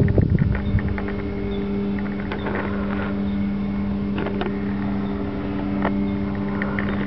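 Carl Goldberg Freedom RC model airplane's motor and propeller making a steady drone in flight. Wind buffets the microphone at the start, and a few light clicks come through.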